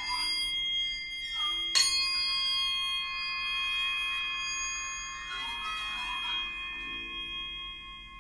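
Free-improvised percussion: metal percussion ringing in many sustained high tones, with some wavering, sliding tones, and one sharp strike about two seconds in, the loudest moment, that rings on.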